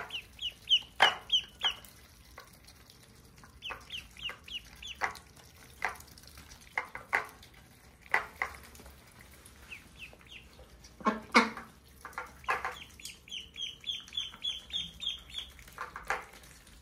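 Ducklings peeping in quick runs of short high calls, about four a second, while ducks dabble in a plate of wet grain mash, their bills snapping and knocking against the dish in sharp clacks.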